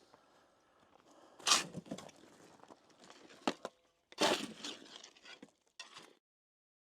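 Two loud rustling, crunching noises about a second and a half and four seconds in, with a few sharp clicks between them, cutting off abruptly about six seconds in.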